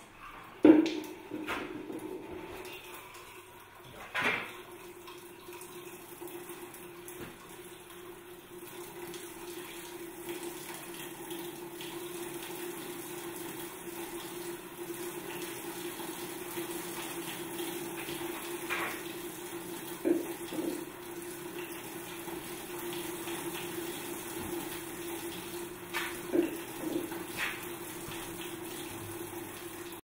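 Water splashing into a wooden trough-and-water-wheel cascade, then running and trickling steadily down the wooden chutes as the small plastic water wheel turns. A steady hum runs under the water, with a few sharp knocks now and then.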